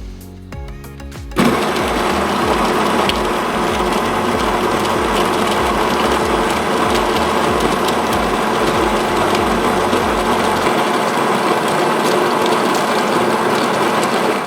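Built-in coffee grinder of a Cyetus all-in-one espresso machine grinding beans at a fine setting. It starts suddenly about a second and a half in, runs with a loud, steady whir and stops abruptly at the end.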